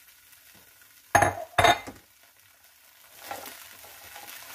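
Two short, loud bursts about a second and a half in, then broccoli florets sizzling in a hot nonstick skillet as a spatula stirs them, the hiss building from about three seconds in.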